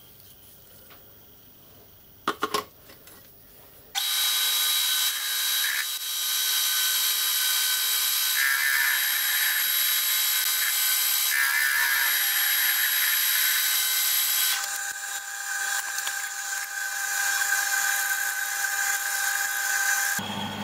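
Metal lathe facing a steel block in a four-jaw chuck, played back at eight times speed, so the cutting comes out as a loud, high, thin hiss with several steady whining tones; it starts abruptly about four seconds in and its texture changes about two-thirds of the way through. Before it, three sharp knocks a little past two seconds in.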